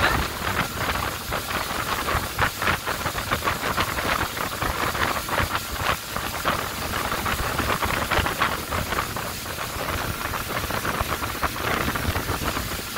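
Churning, spraying wake water behind a moving ski boat, with wind rushing over the microphone and the boat's engine running underneath.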